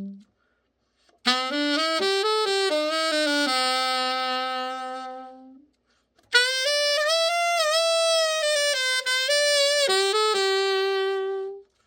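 Freshly overhauled Buescher 400 Top Hat & Cane alto saxophone played solo as a play test. It plays two short phrases: the first ends on a long held note that fades away, and the second has wavering, bending notes. Each phrase starts and stops abruptly.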